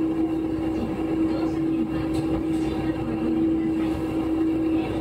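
KiHa 11 diesel railcar running, with a steady engine hum and one constant tone over low rumbling noise.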